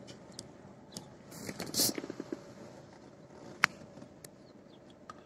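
Quiet inside a parked car: faint handling rustles, a brief muffled voice about two seconds in, and one sharp click a little past halfway.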